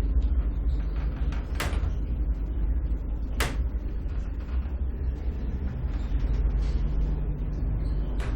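Electric elevator car running, a steady low hum and rumble of the drive and cab. Two sharp clicks sound about one and a half and three and a half seconds in, and another just before the end.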